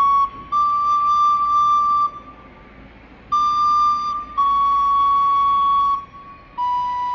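Green plastic soprano recorder playing slow, held single notes at the top of the D major scale, C-sharp and high D, each about a second and a half long. There is a pause of about a second two seconds in, and the pitch drops to a lower note near the end.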